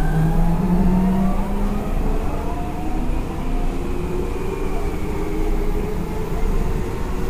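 Seibu 6000 series electric train running, heard from on board: the whine of its Hitachi GTO VVVF inverter motor drive, several tones drifting in pitch, over the steady rumble of wheels on rail.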